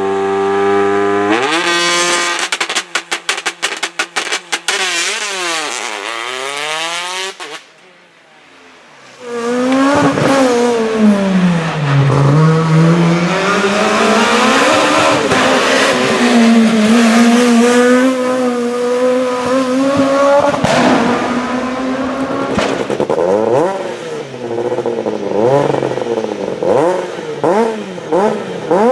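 Rally car engines at full effort: one holds steady high revs, jumps up about a second and a half in and pulls away through the gears with rapid crackling, fading by about 7 s. After a short gap another rally car's engine revs up and down repeatedly through gear changes, with bursts of crackles near the end.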